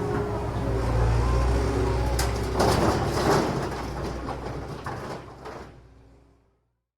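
Excavator's diesel engine running with a steady low drone, with a burst of metallic clanks and rattles about halfway through; the sound then fades out to silence.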